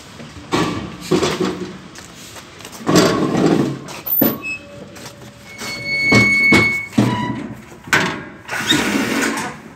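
Steel LPG cylinders being unloaded from a delivery truck and rolled on pavement: a series of scrapes and clanks of metal, with a brief metallic ring about six seconds in.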